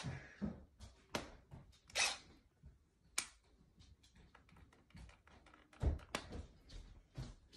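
A few light, sharp taps and clicks, scattered irregularly and a second or so apart, in a small room.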